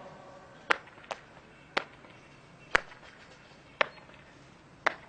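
Six sharp, separate clicks at uneven spacing, roughly a second apart, over a faint low hum.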